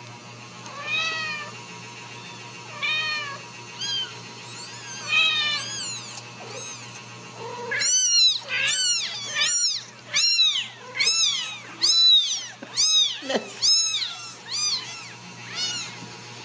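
Very young Ragdoll kittens mewing: high-pitched cries that rise and fall in pitch, a few spaced ones at first, then from about eight seconds in a quick run of louder mews, nearly two a second.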